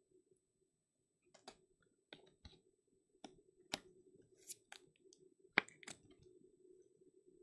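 Light clicks and rustles of a trading card and a rigid clear plastic top loader being handled, with about a dozen sharp clicks starting about a second in, over a faint low hum.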